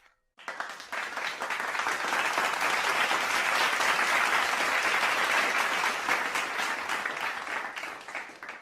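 Applause from a crowd: a dense patter of many hands clapping that starts half a second in, swells through the middle and tapers off before stopping shortly before the end.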